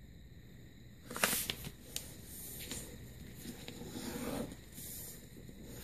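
A sheet of paper crackling and rustling as it is folded and creased by hand: a sharp crackle about a second in, a click near two seconds, then softer sliding rustles.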